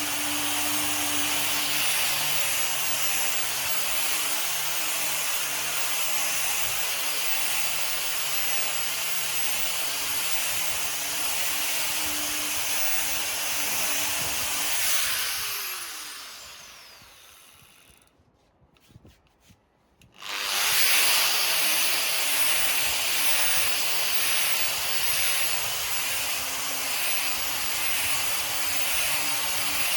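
An electric orbital sander running against a wooden table top: a steady motor hum under a rasping rub. About halfway through it is switched off and winds down with a falling pitch. After a few seconds of near quiet with a couple of clicks, it starts again abruptly and runs on steadily.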